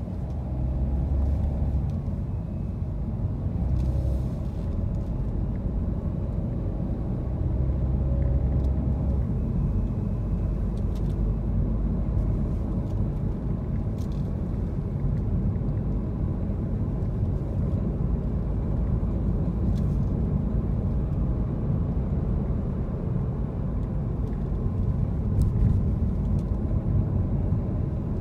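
A car being driven, with a steady low rumble of engine and road noise.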